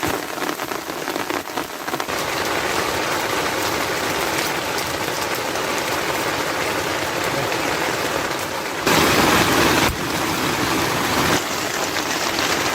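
Heavy rain falling steadily in a dense hiss, with a louder surge about nine seconds in that lasts about a second.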